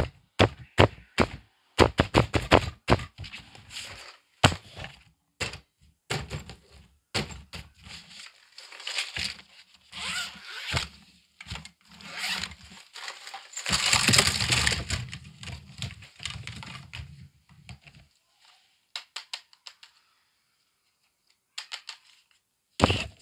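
Hard plastic toy pieces clicking and clacking against each other as they are handled, with crinkling and rustling of a clear plastic zippered pouch through the middle stretch. It then goes quiet apart from faint taps, and there is a sharp knock near the end.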